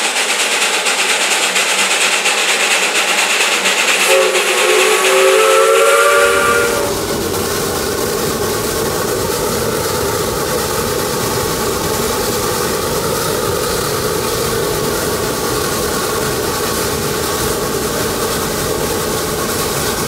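Steam locomotive hissing steam, then its whistle sounding a chord of several notes for about two seconds, rising slightly in pitch, followed by the steady running noise of the train.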